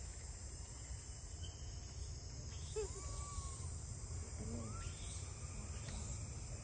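A steady, high-pitched drone of insects, with a few faint, short, rising chirps about three and five seconds in, over a low rumble.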